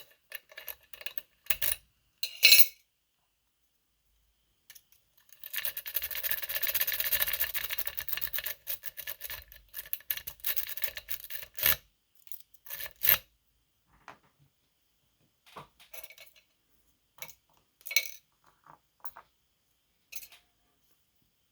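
Metal lock picks and tension tool clicking and scraping in a Medeco Biaxial pin-tumbler lock: scattered light clicks, with several seconds of dense, rapid metallic clicking and scraping from about six to twelve seconds in.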